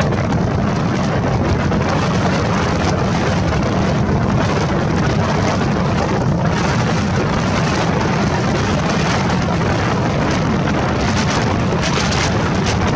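Strong wind blowing hard on the microphone over the rush of a rough, storm-whipped lake, a loud steady noise with no breaks.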